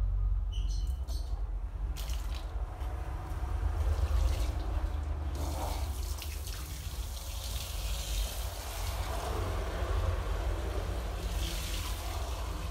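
Water running from a bathroom wall tap and splashing, an even hiss that sets in about two seconds in, over a steady low hum.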